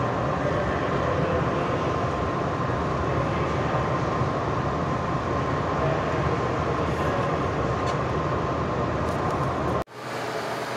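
Steady rushing noise of an indoor swimming-pool hall with a faint steady tone in it. It cuts off abruptly near the end, leaving quieter room noise.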